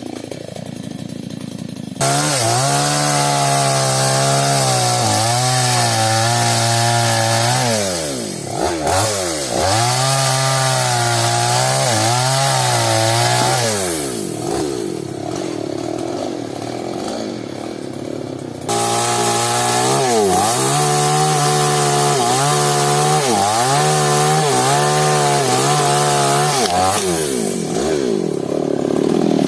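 Two-stroke chainsaw at full throttle cutting sengon wood, its pitch sagging and recovering again and again as the chain bites in. It starts abruptly about two seconds in, and drops back to a lower, rougher note for a few seconds around the middle and again near the end.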